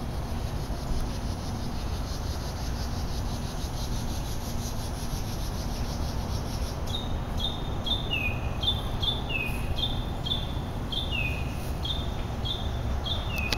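Outdoor ambience with a steady low rumble; about halfway through a songbird starts singing, repeating short high chirps about two a second mixed with lower falling notes.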